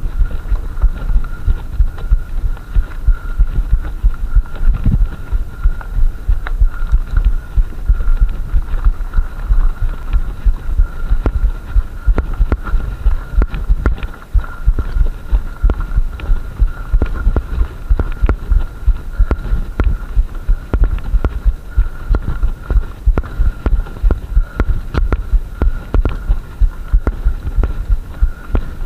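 Mountain bike rolling over a gravel track, heard through a body-mounted camera: a rough low rumble and rapid, irregular thumps as the bumps shake the camera, with a faint steady high whine underneath.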